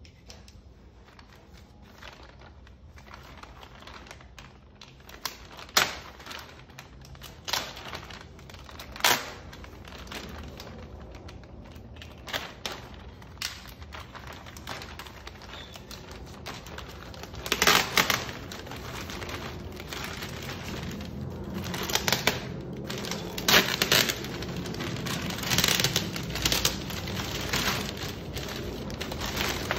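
A plastic courier satchel being slit with a box cutter and pulled apart by hand, the plastic crinkling and crackling in sharp, separate crackles at first, then rustling more densely and loudly in the second half as a cardboard box is drawn out of it.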